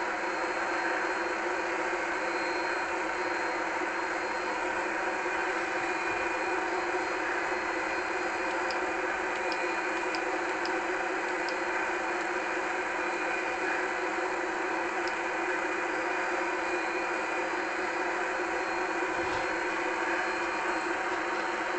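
A small motor whirring steadily at an even pitch, with a few faint ticks about nine to twelve seconds in.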